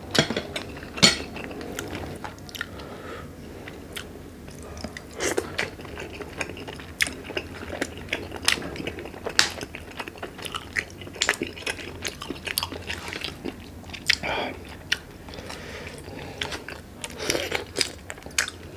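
A person biting and chewing shell-on prawns from a seafood boil, with crunching and many short clicks and cracks of shell scattered throughout.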